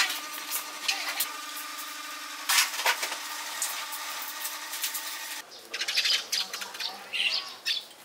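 Small pine pieces clicking and tapping as they are fitted into a wooden birdhouse, over a steady hum. About five seconds in the hum stops and small birds chirp in short bursts.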